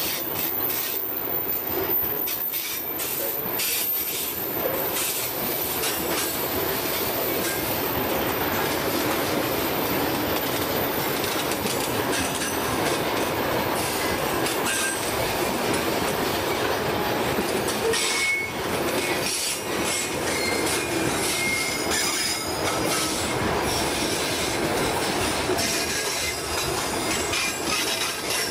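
Freight train cars (covered hoppers, then boxcars) rolling past close by. There is a steady rumble of steel wheels on rail, with frequent clicks over the rail joints. Short, high wheel squeals come now and then, mostly in the second half.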